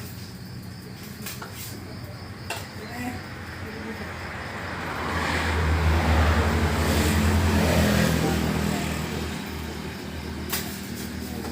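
A motor vehicle passing on the road, its engine hum swelling to a peak about halfway through and then fading away.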